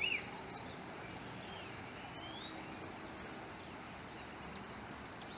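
Small songbirds chirping: a quick run of high, sweeping whistled notes for about three seconds, then they stop, leaving a steady outdoor hiss.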